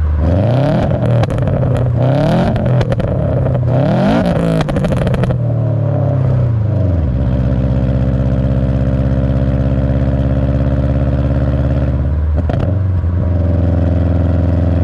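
2007 Subaru WRX STI's turbocharged flat-four engine, breathing through a catless downpipe and HKS cat-back exhaust, revs up and down three times, then drops back and runs at a steady idle.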